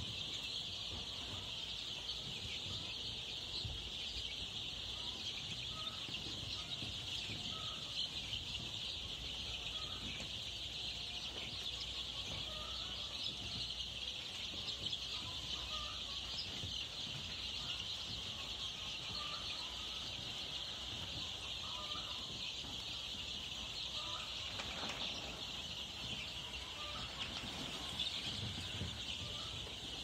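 A large flock of young chicks peeping all at once: a dense, steady, high-pitched chorus.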